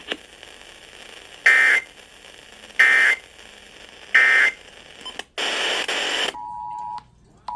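Emergency Alert System end-of-message data bursts heard over a radio: three short, shrill digital screeches about 1.3 s apart over faint hiss. A second of loud static follows, then the steady two-tone EAS attention signal starts near the end, dropping out briefly.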